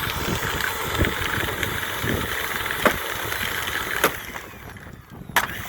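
Dirt Devil Powermax Pet vacuum cleaner's motor running, then cutting out about four seconds in, with a few sharp knocks or clicks. The vacuum's weak, oversensitive switch is losing contact.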